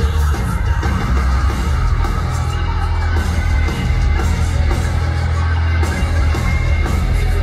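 Live heavy metal band playing at full volume, distorted guitars and drums over a heavy, booming low end, heard from the audience in a concert hall.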